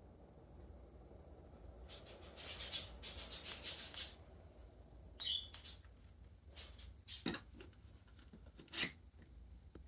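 Rubbing and rustling of something being handled, followed by a few sharp clicks, over a steady low hum.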